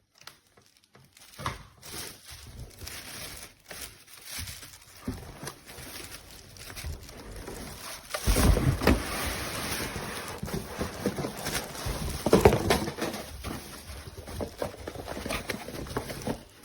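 Plastic packaging rustling and crinkling, with knocks and clicks, as vacuum parts are unpacked and handled. It is louder about halfway through and again a few seconds later.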